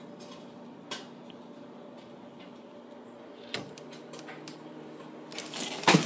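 Faint steady room hum with two light clicks, then near the end a run of scraping and knocking as the door is moved open and the phone is handled.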